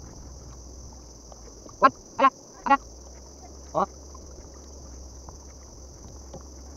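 A bird's short nasal calls, four times: three in quick succession about two seconds in and one more about a second later, over a steady high hiss.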